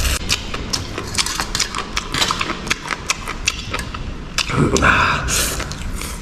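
Close-up eating sounds: a string of quick, irregular crisp clicks and crunches from chewing braised noodles with crunchy beef cartilage. There is a louder, longer sound about 4.5 seconds in.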